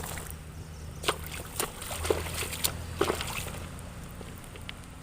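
Shallow water sloshing and splashing as it is waded through and stirred, with a handful of sharp splashes over the first three seconds, above a low steady hum.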